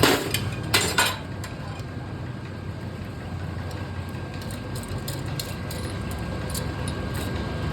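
Iron wire clanking against metal on a vintage lathe: two sharp clanks in the first second, then light metallic ticks over the lathe's steady running.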